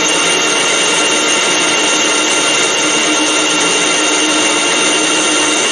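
Metal lathe running under power feed, its tool taking a fixed-depth cut along a long metal bar held out from the chuck without tail support. The sound is a steady, even cutting noise that does not change.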